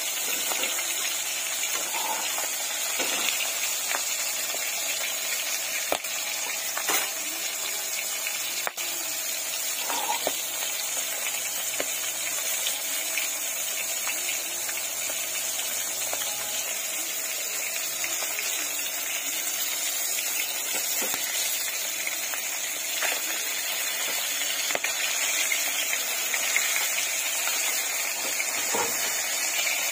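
Fish pieces frying in hot oil in a kadai: a steady sizzling hiss, with a few small pops scattered through it.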